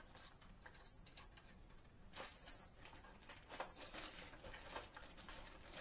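Near silence with a few faint, scattered clicks and rustles as fishing lures and their packaging are handled.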